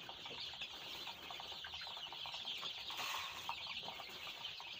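A large brood of young chicks peeping continuously in a dense, high-pitched chorus of short chirps; the chicks are hungry at feeding time.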